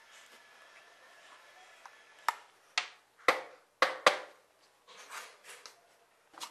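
Five sharp knocks of hard objects in quick succession, about half a second apart, followed by a few softer clatters.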